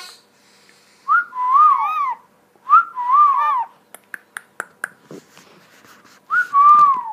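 Hahn's macaw whistling three times, each whistle a quick upward note followed by a longer wavering note that drops away. Between the second and third whistles there is a scatter of sharp clicks.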